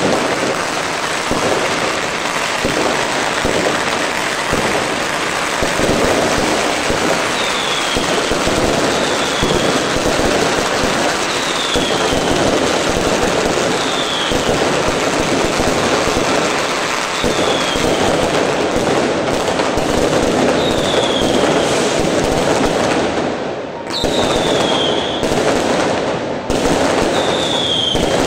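Dense, continuous crackling and banging of aerial fireworks and firecrackers, many bursts overlapping. Short high falling whistles recur every couple of seconds, and there is a brief lull about three-quarters of the way through.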